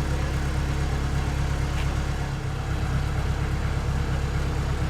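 Antique sawmill machinery running steadily with an even low hum, with no sudden knocks or changes.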